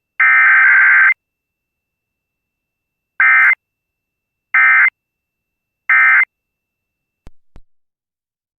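Emergency Alert System digital data tones: a harsh one-second burst of the alert's header code, then three short identical bursts about 1.3 s apart, the end-of-message signal that closes the alert test. Two faint clicks follow near the end.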